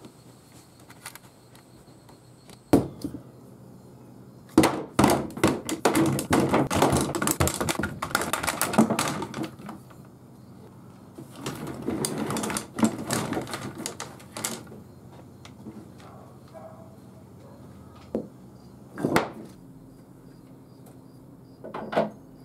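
Quick-release bar clamps ratcheting and clattering on a workbench: a sharp click, then two long runs of rapid clicking and rattling, with a few separate clicks and knocks later.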